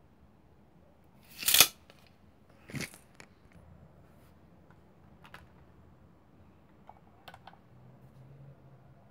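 Handling noise from a plastic Transformers toy and its measuring: a loud, short burst of noise about one and a half seconds in, a softer one just before three seconds, then a few light clicks and taps as the toy is set on a glass kitchen scale.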